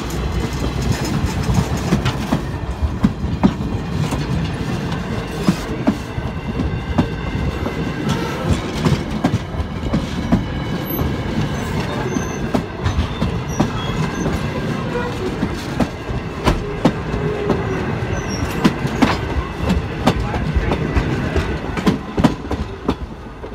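Passenger train coaches rolling past at close range: a steady rumble of the wheels with frequent sharp clicks and clacks as they pass over the track.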